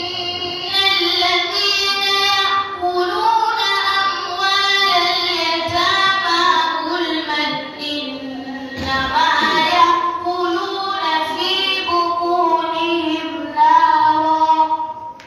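A young woman reciting the Qur'an in a melodic chant, drawn-out phrases of a few seconds each with slow ornamented pitch glides and brief breath pauses between them.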